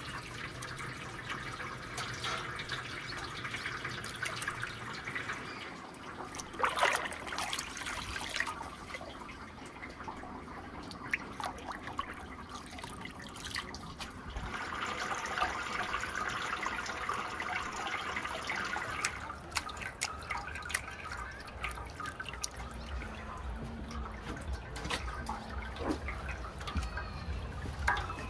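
Liquid trickling and dripping, louder for several seconds past the middle, with a brief knock about a quarter of the way in.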